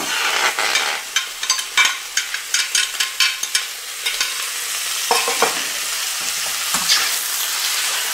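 Squid rings sizzling as they hit a hot oiled wok, with a quick run of clicks and scrapes as a spoon pushes them out of a glass dish during the first four seconds. Then a steady sizzle with a few knocks of the utensils as the squid is stirred.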